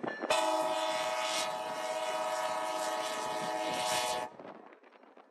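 Air horn of an Amtrak Siemens SC-44 Charger diesel locomotive sounding one long, steady blast of several notes at once, lasting about four seconds and cutting off sharply.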